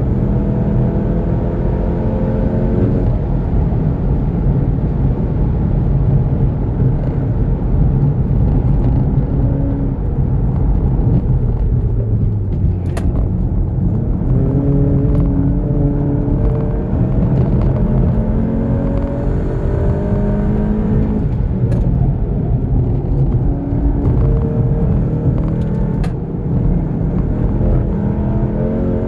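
Tuned VW Golf GTI Mk7 turbocharged 2.0-litre four-cylinder engine pulling hard, its pitch climbing through the revs and dropping at each gear change, several times, over steady low road rumble.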